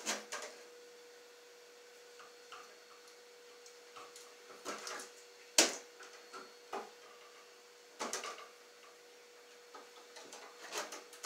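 Scattered clicks, taps and snaps of hands and tools working electrical wires in a wall-mounted electrical box. The sharpest snap comes about halfway through, with small clusters of clicks near the start, around 8 seconds, and near the end.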